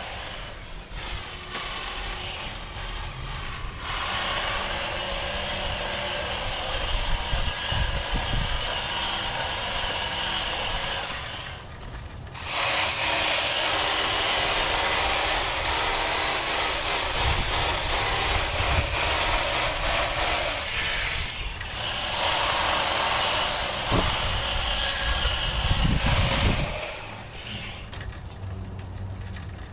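Hedge trimmer running in long stretches while cutting a hedge. It drops out briefly about twelve and twenty-one seconds in and stops about twenty-seven seconds in.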